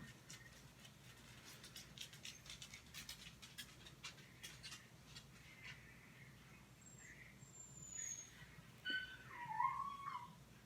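Faint soft clicks and rustling over the first half, then near the end a short whining animal call that dips and rises in pitch, with a thin high squeak a little before it.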